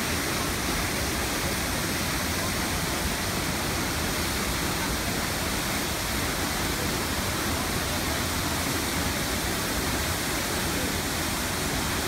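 A waterfall plunging into a pool: a steady, even rush of falling water that does not let up.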